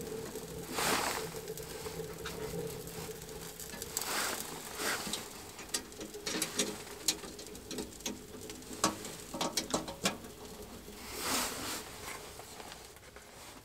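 Wood fire crackling inside a small steel wood stove, with irregular sharp pops and clicks and a few short rushing swells.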